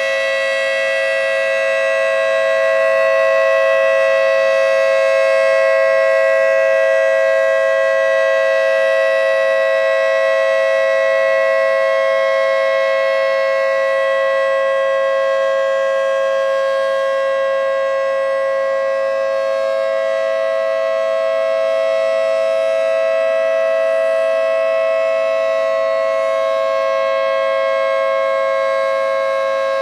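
Federal Signal 2T22B dual-tone siren sounding the steady Alert signal at full speed: two steady pitches held together as one sour chord, with no rise or fall in pitch. Its level swells and eases slowly.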